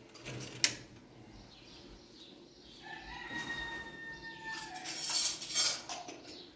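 A rooster crows once, one long held call of about two seconds. A sharp click comes about half a second in, and loud rustling noises follow near the end.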